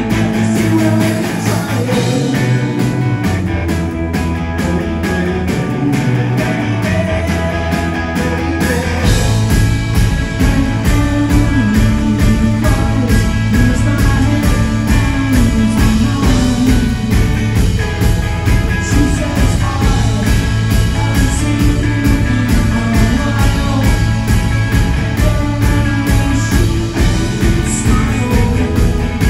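Live rock band playing: electric guitar, bass and drums with a male lead voice singing. About nine seconds in the full band with a steady drum beat comes in and the music gets louder.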